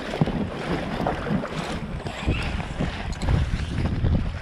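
Wind buffeting the microphone over choppy lake water, with irregular splashing from a canoe being paddled into a headwind.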